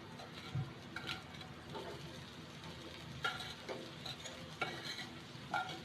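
Utensil scraping and clinking against a grill pan as vegetables are stirred in hot butter, with a faint sizzle underneath. The clinks come one at a time, closer together in the second half.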